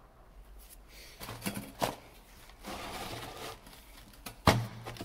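Faint workshop handling sounds: a few scattered clicks and knocks, with one sharp knock about four and a half seconds in. The grinder is not running.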